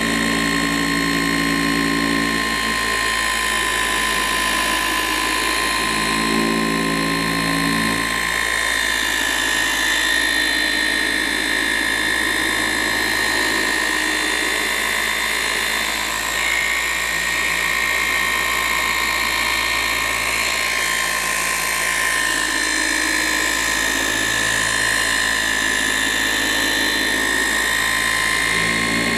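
Electric car paint polisher running at raised speed on a body panel, a steady high-pitched motor whine as it works the polish in during a single-stage paint correction.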